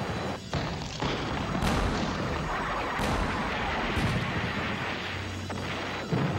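Battle sounds of tank gunfire and explosions: about six sharp blasts, roughly a second apart, over a continuous heavy din.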